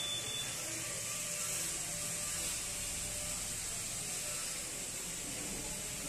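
Steady hiss with a faint low hum underneath, and a short high beep right at the start.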